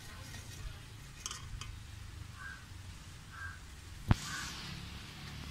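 Bajji frying quietly in hot oil in an aluminium kadai. The sizzle has died down, which is the cue that they are cooked through. About four seconds in there is a sharp metallic clink as the wire spider strainer knocks against the pan while lifting them out.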